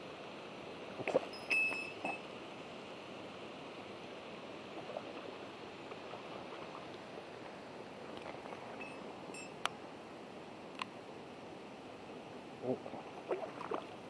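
Steady rush of a small waterfall pouring into a plunge pool, with a few short sharp clicks and taps from a baitcasting rod and reel being worked, about a second in and again near ten seconds.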